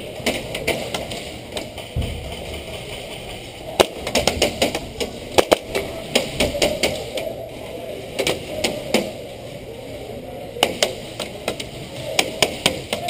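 Airsoft gunfire: sharp snaps and clacks of guns firing and BBs striking hard surfaces. They come in irregular volleys, busiest about four to six seconds in and again near the end.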